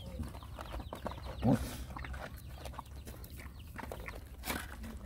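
Several dogs eating together from one bowl, making scattered chewing and lapping clicks, with a chicken clucking nearby. A short low call about a second and a half in is the loudest sound.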